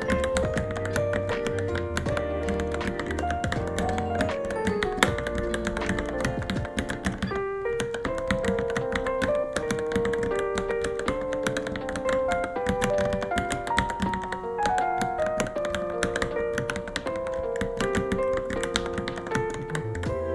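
Rapid, continuous typing on a Varmilo Minilo mechanical keyboard, a dense run of key clicks, under louder melodic background music whose bass drops out about four seconds in.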